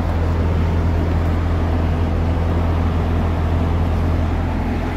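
Semi truck's diesel engine idling: a steady low hum with an even rushing noise over it.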